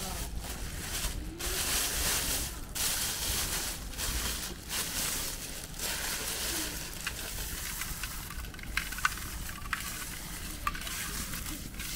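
Plastic bag rustling and crinkling in bursts as dried mountain herbs are handled and crumbled out of it by hand. A few small sharp crackles come later on.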